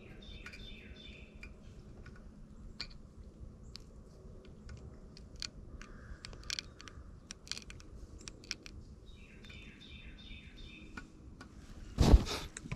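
A songbird singing a phrase of quick repeated chirps, once at the start and again about nine seconds in, over scattered small clicks and taps of hands handling fishing tackle. Near the end comes a loud brief scrape of shirt fabric rubbing over the chest-mounted camera's microphone.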